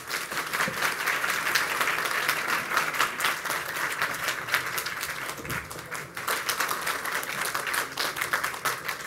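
A large audience applauding: many hands clapping at once in a steady wash.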